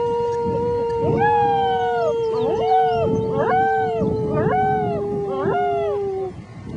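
Six-week-old German Shepherd puppies howling: one long, slightly falling howl held until about six seconds in, with about five shorter howls that rise and fall layered over it.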